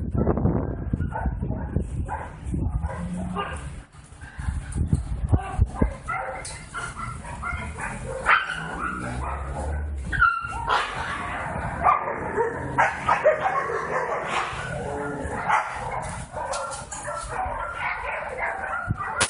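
Several dogs barking and yipping in short, irregular calls, with some whimpering.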